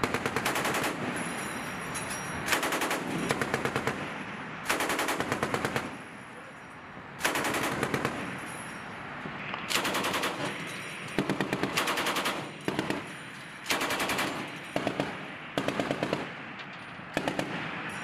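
A ship's deck-mounted machine gun firing about ten short bursts of rapid automatic fire, each roughly a second long, with brief pauses between bursts.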